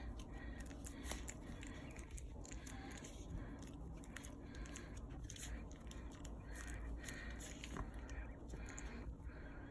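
Faint, irregular small clicks and crunches of a puppy chewing and gnawing.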